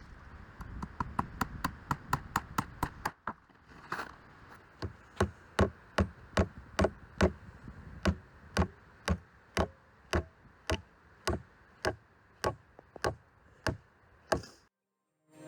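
Hammer driving nails into wooden bridge treads. The blows are sharp and regular, about three a second at first, then about two a second from roughly three seconds in. They stop shortly before the end.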